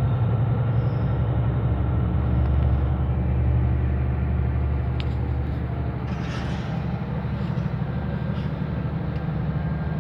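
Volvo D13C inline-six diesel of a Volvo B13R coach running steadily under way, a low even hum heard from inside the coach. A short hiss comes about six seconds in.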